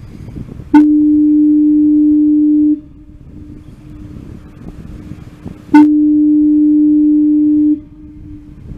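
Foghorn sounding two steady, low-pitched blasts of about two seconds each, five seconds apart, each starting abruptly with a sharp click; the blasts are loud and close.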